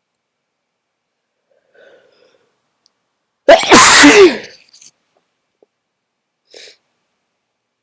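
A person sneezing once, a single explosive, very loud sneeze about three and a half seconds in that lasts about a second, preceded by a faint intake of breath.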